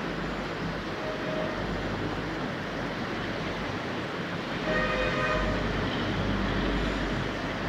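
Steady rumbling background noise, with a horn sounding briefly about five seconds in.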